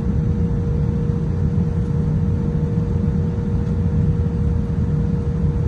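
Airliner cabin noise while taxiing: a steady low rumble from the jet engines at low thrust and the rolling gear, with a thin steady tone running through it.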